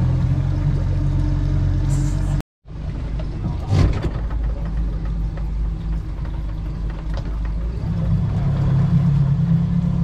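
Boat motor running steadily, cut by a brief dropout about two and a half seconds in and growing louder near the end.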